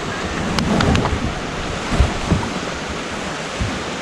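Surf washing onto the beach with wind buffeting the microphone, a steady rushing noise; a few short low thumps and a quick cluster of clicks about a second in.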